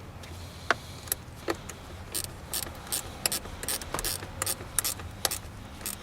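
Hand ratchet clicking in short, irregular strokes while a battery cable terminal is tightened onto the battery.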